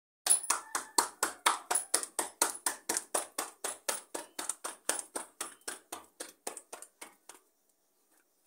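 Roti dough slapped back and forth between the palms to flatten it by hand: a quick, even run of about four slaps a second that grows fainter and stops near the end.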